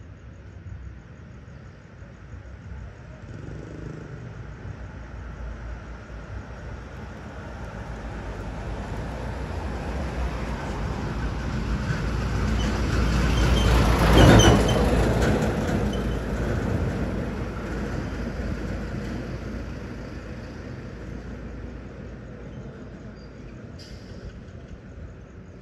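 A road vehicle passes by: its engine and tyre noise grow steadily louder over about fourteen seconds, peak as it goes past, then fade away.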